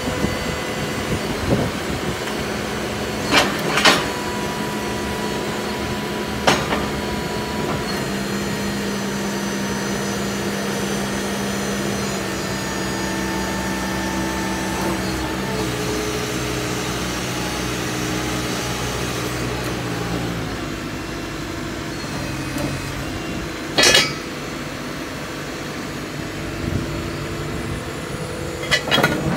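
JCB 535-140 telehandler's JCB Tier 3 diesel engine running steadily while the boom and stabiliser hydraulics are worked, its pitch stepping up and down a few times. A few sharp short knocks sound over it, the loudest about two-thirds of the way through.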